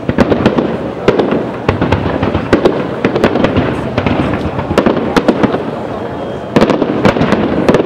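Aerial firework shells bursting in quick succession: a steady run of sharp bangs and cracks over a continuous noisy din, with a cluster of louder bangs near the end.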